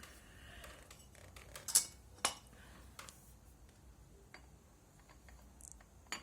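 Metal clutch parts of a KTM 990 Adventure being handled and taken out by hand: scattered light metallic clinks and clicks, the loudest a pair about two seconds in.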